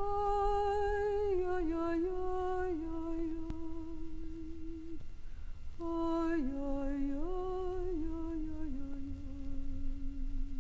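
A woman humming a slow melody alone, in two phrases of held notes with small slides between them, the second starting about six seconds in. A low hum of recording noise sits underneath.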